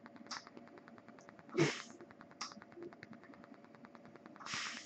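Breath and air sounds of a man on a ventilator, pausing between phrases: a short airy puff about one and a half seconds in, a smaller one a moment later, and a longer hiss near the end. Under them, a faint steady hum and a fast, faint ticking.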